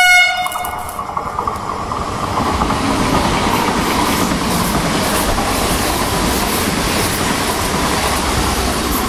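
Trenord electric passenger train passing close by: a steady loud rush of wheels on the rails with a steady tone through it, easing off near the end. A brief high tone rings out right at the start and dies away within half a second.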